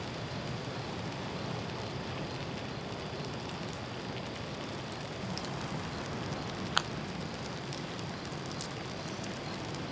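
Rib burger patties sizzling steadily in oil in a frying pan over glowing wood coals, with one sharp click about seven seconds in.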